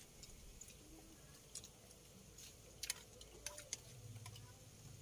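Faint, scattered clicks of a metal spoon tapping and scraping a plate during eating, the sharpest about three seconds in. A low hum comes in near the end.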